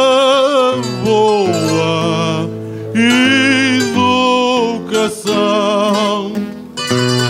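A man sings a verse with strong vibrato in phrases broken by short pauses, accompanied by a viola da terra and an acoustic guitar playing chords.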